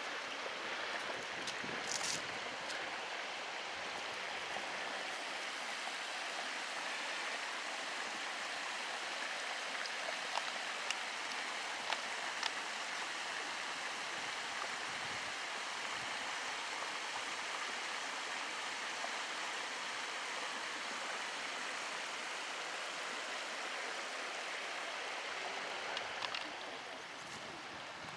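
A small woodland stream running over stones: a steady, even rush of water, with a few faint clicks.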